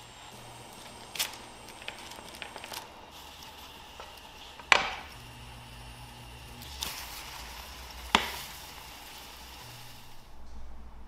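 Three sharp knocks of a utensil against a rectangular omelette pan, the loudest about halfway through, over faint sizzling of egg cooking.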